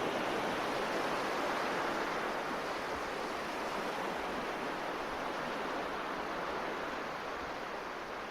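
A steady, even rushing noise, like surf or white noise, easing off slightly toward the end, with no music or voice.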